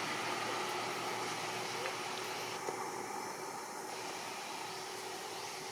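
Steady hiss-like background noise that eases off slightly, with a faint steady tone underneath and one small tick about halfway through.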